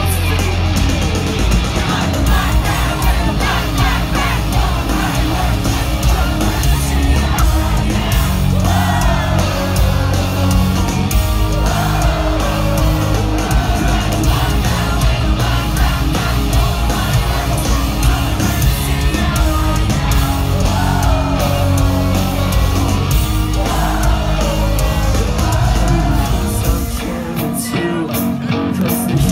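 Live rock band playing loudly with a singer, heard from within the audience. The music goes quieter and thinner near the end.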